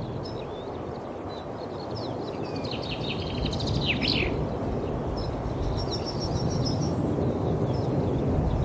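Small birds chirping in short high calls, a quick run of them about halfway through, over a steady low rush of wind on the microphone that grows louder near the end.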